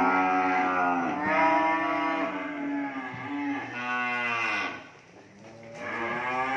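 Calves mooing: about four drawn-out calls one after another, a short lull about five seconds in, then calling again.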